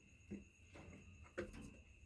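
Near silence with a low hum, broken by two short soft knocks about a second apart, the second one louder.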